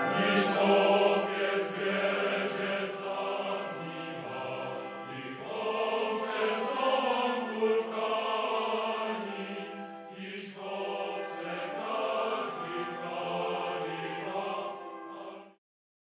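Choral singing, slow and sustained, which stops abruptly shortly before the end.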